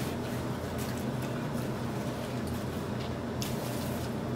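Close-miked eating sounds: soft chewing and a few light clicks and rustles as fries are picked up by hand, over a steady low hum.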